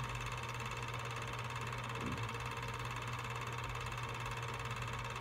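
Film projector running with a steady low hum and hiss.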